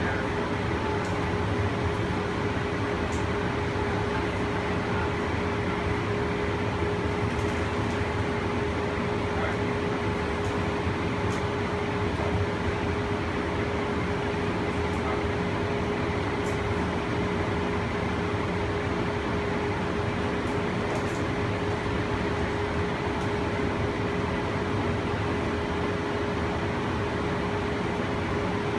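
Steady running noise inside a BART Oakland Airport Connector car, a cable-hauled Doppelmayr people mover, as it travels along its elevated guideway. An even rumble and hiss carries a steady hum, with a few faint ticks.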